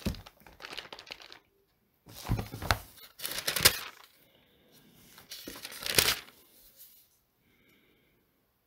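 Pages of a Bible being flipped and turned, paper rustling in several quick bursts.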